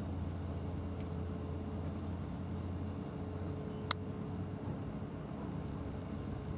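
Steady low drone of an idling engine, with one sharp click about four seconds in.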